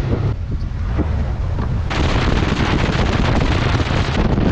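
Wind buffeting the microphone on a small aluminium boat running at speed, over the steady drone of its outboard motor; the rushing noise grows louder and brighter about two seconds in.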